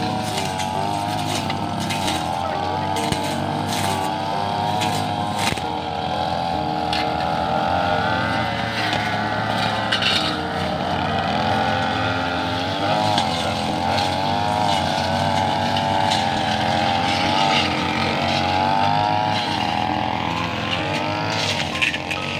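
Backpack brush cutters running while cutting undergrowth, their engine whine rising and falling as the throttles are worked, with occasional sharp ticks.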